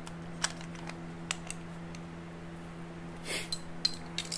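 Scattered light clicks and taps of small metal engine parts and hand tools being handled, with a brief rustle about three seconds in, over a steady low hum.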